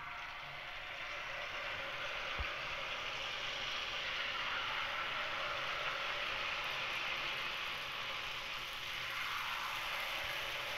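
Jalebi batter frying in a pan of hot oil: a steady sizzle that grows a little louder over the first couple of seconds as more batter is piped in, then holds.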